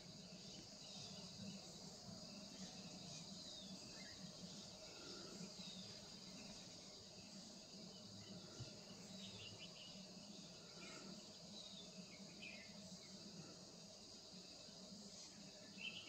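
Faint outdoor ambience of a steady, high-pitched insect chorus, with a few scattered short faint chirps over it.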